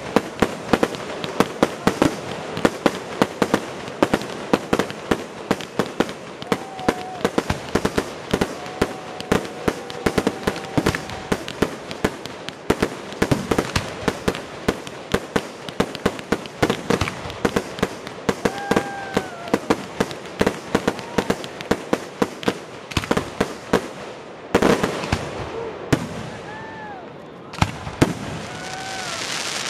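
Fireworks display: a dense, continuous barrage of bangs and crackling, with a louder blast about 24 seconds in.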